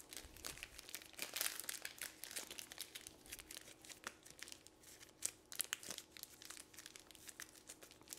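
Plastic disposable piping bag crinkling as its open end is twisted and tied in a knot: faint, irregular crackling.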